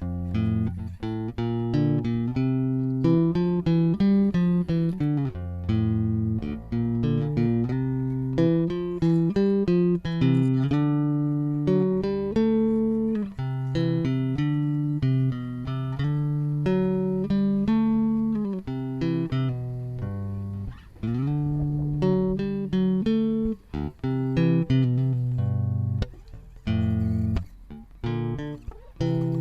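Background music: plucked guitar and bass notes playing a continuous melodic line.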